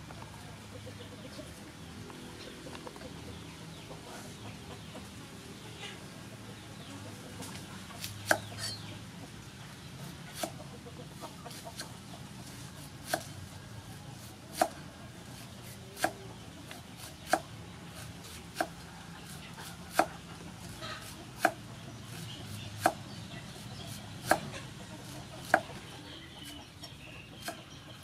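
Cleaver slicing an onion on a wooden chopping board: single sharp knocks of the blade on the board, about one every second and a half, starting about eight seconds in.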